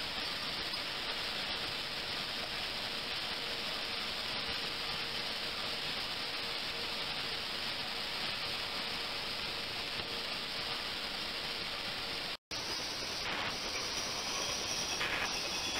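Steady rushing hiss of water churning and bubbling in an ultrasonic cleaning tank driven by a microbubble-generating liquid-circulation system, with a faint steady tone underneath. A little after twelve seconds the sound drops out for an instant and comes back as a similar hiss.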